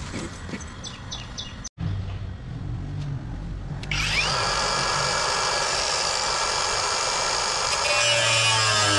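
Angle grinder starting up about four seconds in, then grinding steadily against the wall: a high steady whine over a harsh grinding hiss, growing a little louder and changing in tone near the end.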